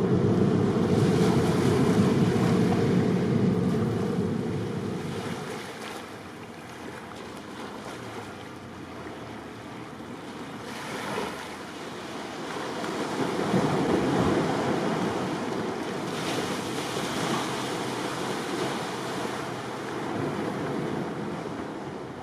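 Wind buffeting the microphone over the wash of the sea, an unpitched rumbling hiss that is loud at the start, eases off, and gusts up again about two-thirds of the way through.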